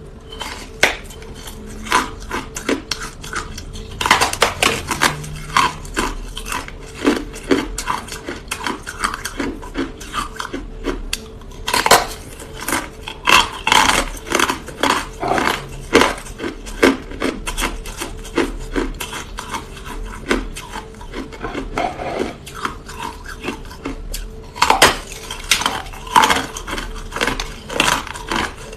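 Hard ice being bitten and chewed right at the microphone: dense, irregular sharp cracks and crunches, with heavier bursts of biting about four, twelve and twenty-five seconds in.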